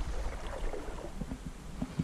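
River water lapping and gurgling around a wading angler's legs, in small irregular plops and swirls over a low rumble.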